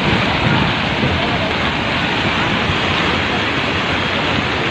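Flash floodwater from a cloudburst rushing past in a torrent: a loud, steady rush of water noise that does not let up.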